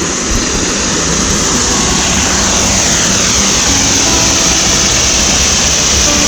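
An airplane flying over: a steady, loud rushing engine noise that swells slightly, with a sweeping, phasing quality as it passes.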